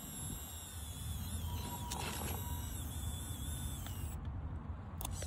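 RC rock crawler's small electric motor and drivetrain whining as it crawls slowly over rocks, with a thin steady whine for about a second in the middle and a couple of light clicks.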